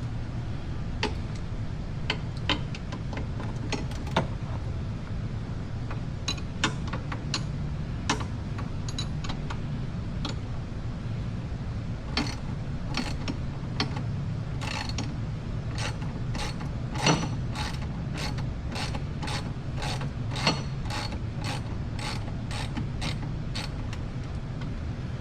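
Ratchet wrench clicking as it backs out a shock absorber mounting bolt, in scattered strokes at first and then a steady run of about two clicks a second through the second half. A steady low hum runs underneath.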